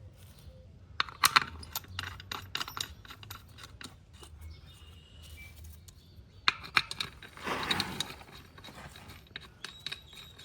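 Metal clinks and rattles of lug bolts being handled and put back into a tractor wheel hub, in two clusters: one about a second in and a longer one with some scraping near seven to eight seconds.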